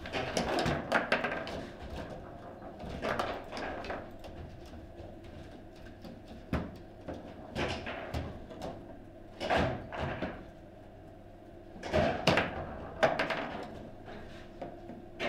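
Table football game in play: irregular sharp knocks and clacks of the ball striking the players and table walls and of the rods being worked, with louder bursts of quick hits near the start and about ten and twelve seconds in.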